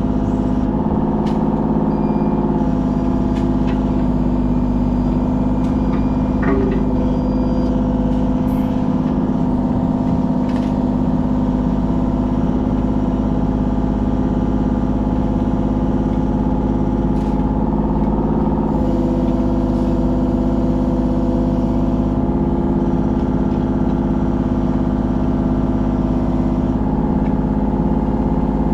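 Kubota KX033 mini excavator's diesel engine running steadily under working load. Its pitch shifts slightly a few seconds in and again about two-thirds of the way through, with a few faint clicks over it.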